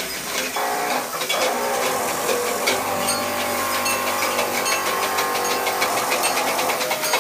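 Several homemade experimental instruments sounding together: held electronic-sounding tones come in about half a second in over a steady stream of rapid mechanical clicking and buzzing.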